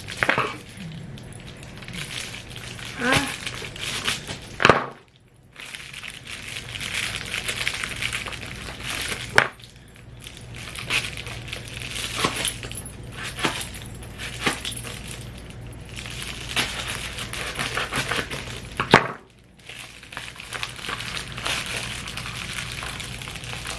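Packaging of a screen protector being torn open and handled: continuous crinkling and rustling, broken by several sharp taps and clicks.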